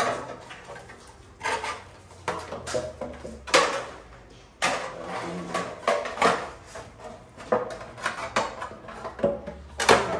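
Thin galvanized sheet metal handled and flexed in the hands as a bent J-feeder is fitted together, giving irregular metallic clanks, rattles and crinkles.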